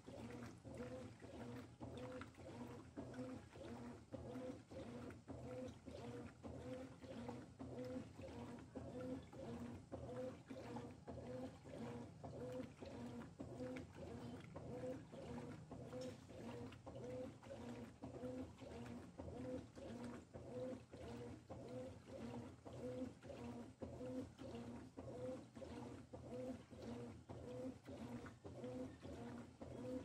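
Consul 13 kg top-load washing machine agitating a duvet in water: the motor hums in a steady back-and-forth rhythm, a stroke every second or so, with the water churning.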